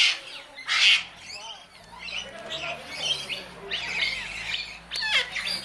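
A flock of parrots squawking and chattering: two loud harsh squawks in the first second, then a dense mix of shorter chirps and whistles from many birds, with another loud squawk near the end.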